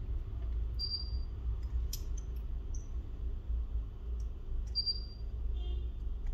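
A steady low hum, with a few faint sharp clicks and two short high pings from small tools and phone parts being handled.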